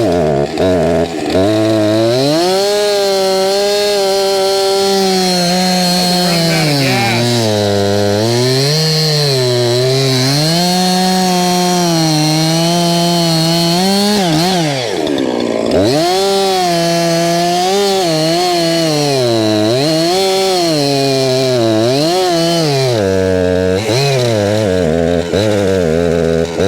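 Two-stroke chainsaw cutting firewood, its revs rising and falling as the chain loads up in the wood and frees again. About fifteen seconds in, the engine drops briefly toward idle, then revs back up and keeps cutting.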